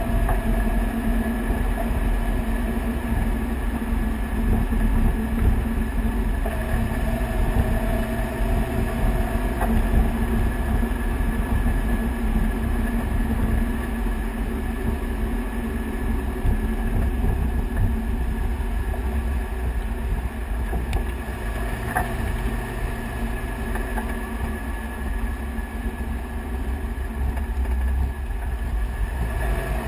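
Road noise from under a moving Toyota Tacoma pickup: front tyre rolling on pavement and air rushing past, over a steady low rumble.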